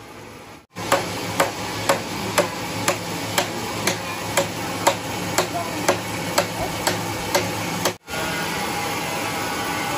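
Hand hammer striking repeatedly at an even pace, about two blows a second, over a steady machine hum. Near the end the blows stop and a steady machine running noise takes over.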